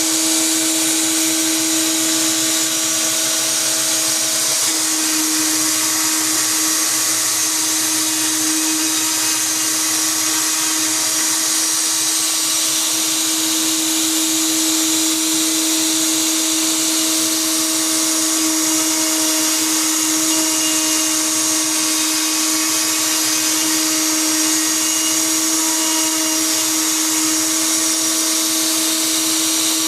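Bosch 1617EVS router motor running steadily at high speed as the spindle of a CNC robot, a constant whine over a loud airy hiss.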